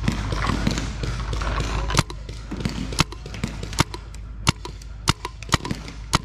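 Paintball markers firing: sharp pops at uneven intervals, starting about two seconds in and coming faster toward the end.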